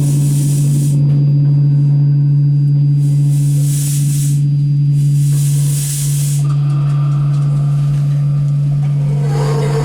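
Live electronic noise music: a loud, steady low drone with swells of high hiss rising and falling over it every second or two.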